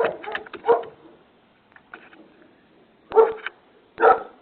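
A dog barking, heard through a doorbell camera's microphone: two barks at the start, a pause of about two seconds, then two more.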